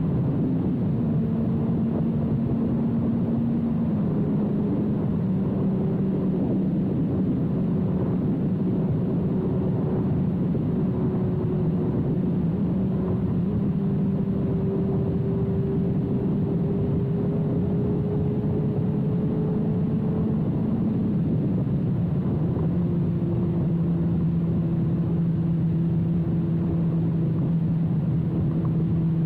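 2006 Suzuki GSX-R1000's inline-four engine through a full carbon/titanium Yoshimura exhaust, running at steady cruising throttle. The engine note holds steady, dipping slightly a few times and rising slowly in the middle.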